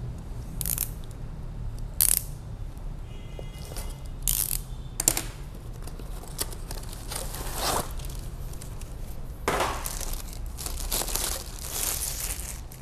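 A cardboard box being handled and opened, with a few sharp scrapes and taps in the first half. Then a longer rustle of a plastic bag as the turntable platter is slid out of it.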